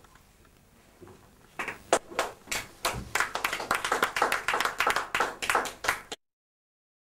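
Small audience clapping, starting about a second and a half in and cutting off suddenly about six seconds in.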